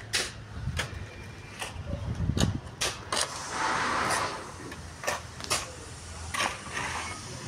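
Irregular sharp knocks of hand tools striking brick and concrete, with a short scrape of rubble about four seconds in, over a steady low hum.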